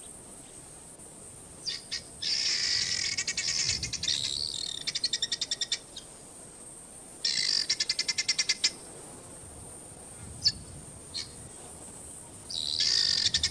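A bird calling in three bouts of fast, rattling chatter, the notes coming about nine a second, over a steady high insect drone.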